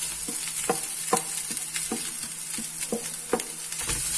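Cooked shredded chicken and fried onions sizzling in oil in a pan while a spatula stirs them, knocking and scraping against the pan about twice a second.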